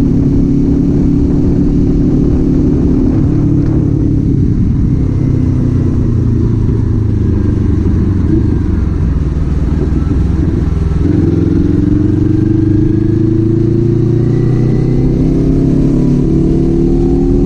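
Kawasaki Z400 parallel-twin engine and exhaust on the move: a steady engine note that eases and wavers, then about eleven seconds in picks up sharply and rises steadily in pitch as the bike accelerates.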